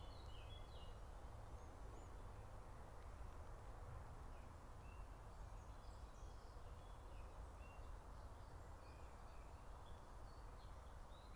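Faint woodland birdsong: scattered short chirps and brief whistled notes from small birds, over a steady low background rumble.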